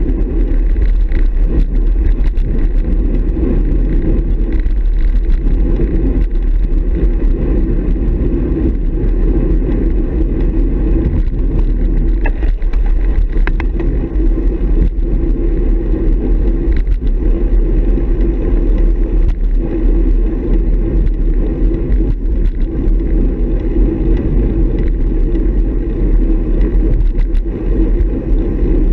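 Loud, steady wind rumble buffeting the microphone of a handlebar-mounted action camera on a road bike in motion, mixed with tyre noise on asphalt.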